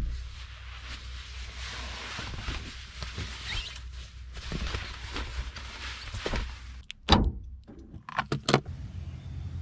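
Fabric rustling as a blackout window shade is pulled down inside a kei van, then a knock and three or four quick clicks near the end.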